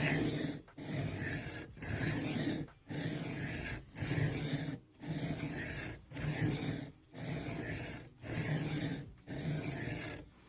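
Knife blade drawn across an 800-grit diamond sharpening plate in about ten even strokes, roughly one a second, each a gritty steel-on-diamond scrape with short pauses between.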